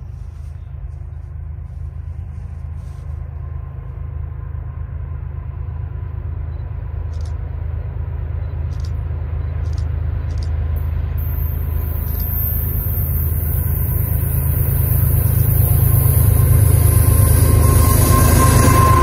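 CN freight train's GE diesel locomotives approaching, their low engine rumble growing steadily louder, with a thin steady whine above it. A high hiss joins about eleven seconds in.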